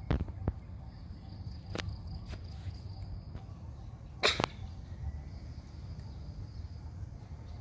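Outdoor ambience: a low rumble under a faint, steady, high insect-like drone, broken by a few sharp clicks, the loudest a quick pair about four seconds in.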